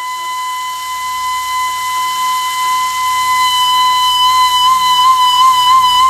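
Background music: a long held, flute-like note that swells slowly and begins to waver in pitch about four seconds in, over a soft low pulse.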